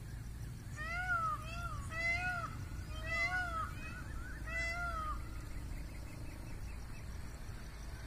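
A series of short animal calls, each rising then falling in pitch, about a dozen of them in quick groups, some overlapping, which stop about five seconds in. A steady low rumble runs beneath them.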